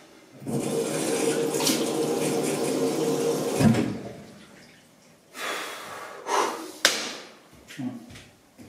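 A bathroom sink tap runs into the basin for about three seconds and is shut off with a knock, followed by a few brief washing sounds at the basin.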